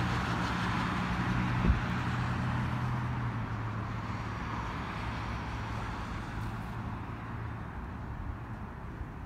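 A motor vehicle's engine running with a steady low hum, fading away over several seconds. A single short knock about two seconds in.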